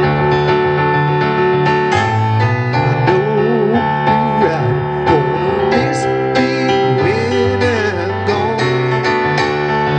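Electric keyboard playing an instrumental jam: sustained low bass notes under held chords, with a wavering melody line in the middle.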